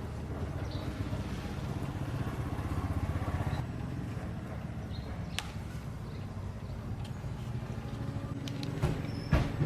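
A small engine running steadily, swelling a little around three seconds in, with a few sharp knocks near the end.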